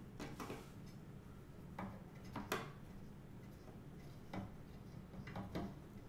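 Screwdriver driving the small screws that hold a motherboard down in a computer case: faint, irregular clicks and ticks, about eight of them, the sharpest about two and a half seconds in.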